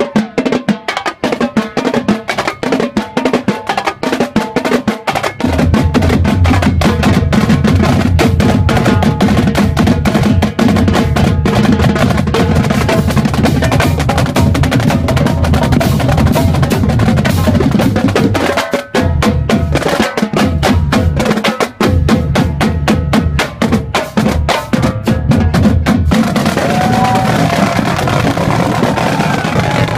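Marching drumline playing a fast cadence on snare drums, multi-tenor drums and bass drums. The bass drums come in heavily about five seconds in, with a couple of brief breaks later on.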